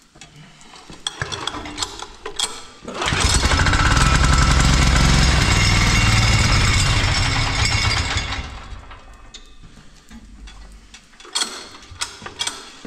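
Single-cylinder 178F diesel engine of a tiller catching after a few seconds of cranking, running hard with a fast, even thudding for about five seconds, then dying away; the mechanic puts its hard running down to a valve damaged by a knock. A few sharp clicks near the end.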